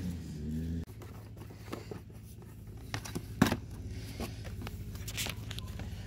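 Scissors cutting and foam tape being peeled and handled: scattered scrapes and clicks, the sharpest a snap about three and a half seconds in, over a steady low hum.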